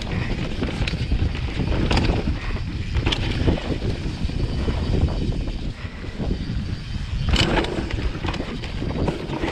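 Mountain bike descending a rough dirt trail at speed: a steady rush of wind buffeting the microphone and tyres on dirt, broken by knocks and rattles of the bike over bumps, the loudest about seven seconds in.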